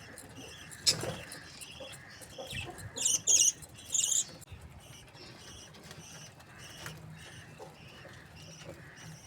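Budgerigars chirping continuously in short repeated notes, with a few loud, shrill calls about three and four seconds in and a sharp knock about a second in.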